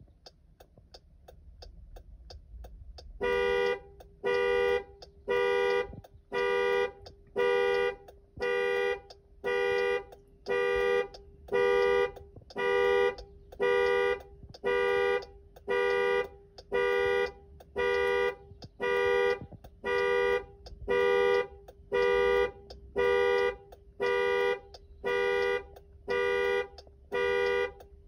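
2019 Jeep Grand Cherokee's horn honking in regular pulses, about one a second, starting about three seconds in after a faint ticking: the pattern of the vehicle's anti-theft alarm going off.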